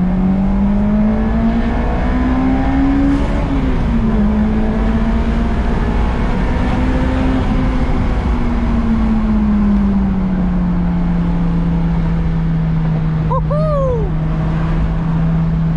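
Honda S2000's four-cylinder engine heard from inside the cabin, climbing in revs through a gear, dropping on an upshift about three seconds in, pulling again and then easing off to a steady cruise. A short squeaky chirp near the end.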